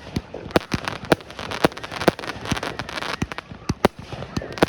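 Fireworks exploding: a rapid, irregular string of sharp bangs and pops, several a second, over a constant crackling.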